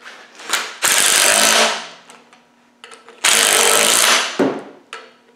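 Cordless impact driver hammering bolts into an engine flywheel, in two bursts of about a second each with a few small clanks between.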